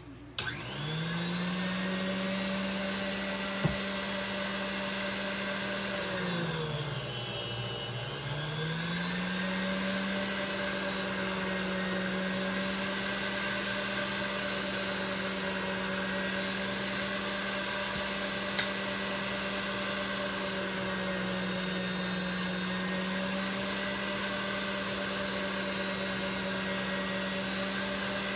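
KitchenAid stand mixer's motor driving its pasta roller attachment as a sheet of ravioli dough is fed through. It is a steady electric hum that spins up at the start, then sags in pitch and recovers once about a quarter of the way in. Two light clicks can be heard.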